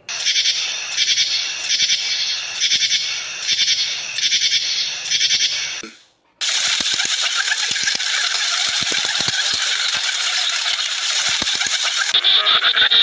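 Grasshoppers' high rasping stridulation, pulsing about twice a second, cutting off about six seconds in. After a short break comes a steady hiss with scattered clicks.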